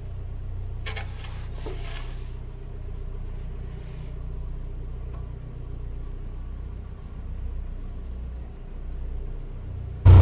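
Narrowboat diesel engine running slowly, a steady low throb, as another narrowboat passes close alongside. Just before the end it jumps much louder, with the engine heard close up.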